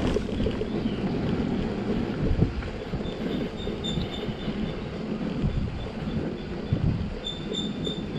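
Motorcycle riding over a rough, broken road surface: an uneven low rumble with wind noise on the microphone.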